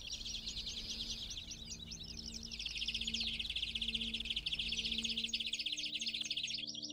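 European greenfinch song: a continuous, rapid twittering trill that grows louder about two and a half seconds in, with faint background music underneath.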